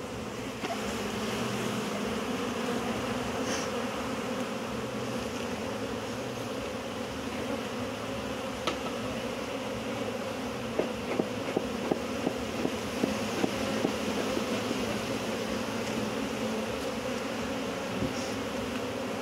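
Steady, dense buzzing of a large honey bee colony swarming over an opened wooden hive; the beekeeper calls it a strong, somewhat defensive colony. About halfway through comes a quick run of sharp ticks, roughly eight in three seconds.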